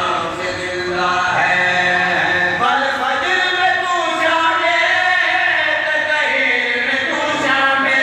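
Several men chanting a Shia mourning lament (nauha) together into a microphone, unaccompanied, in long held, wavering notes.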